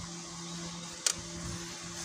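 Slotted metal spoon stirring chopped vegetables in a metal cooking pot, with one sharp clink about a second in, over a steady low hum.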